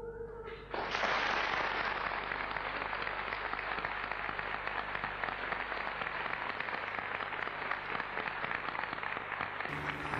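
Audience applauding, a dense, steady clatter of many hands clapping that comes in suddenly just under a second in, as a held musical note ends. Orchestral music comes back in under it near the end.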